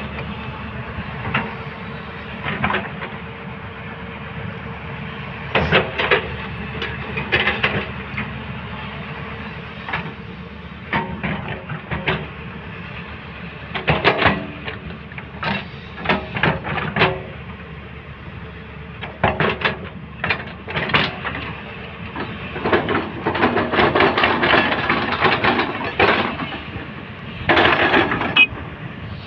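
Crawler earthmoving machine running, a steady engine drone broken by irregular clusters of metallic clanking and rattling.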